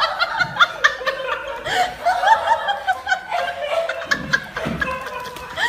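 Quick run of high-pitched laughter, several short rising-and-falling notes a second.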